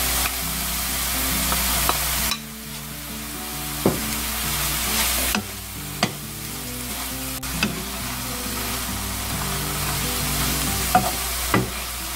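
Julienned burdock root and chili peppers sizzling in a frying pan while being stirred with a wooden spatula. The spatula clacks against the pan now and then, and the sizzle dips for a few seconds early on before picking up again. Soft background music plays underneath.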